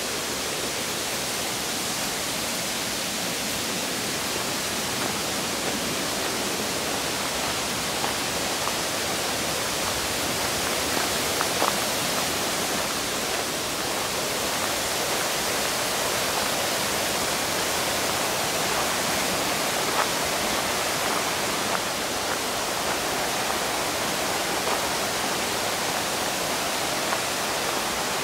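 Rushing mountain water, a steady even hiss.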